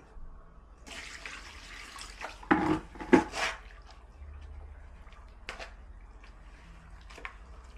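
Water splashing and sloshing as cement is mixed for a wall repair, with two sharp knocks about two and a half and three seconds in and a few lighter clicks later. A steady low rumble of wind on the microphone runs underneath.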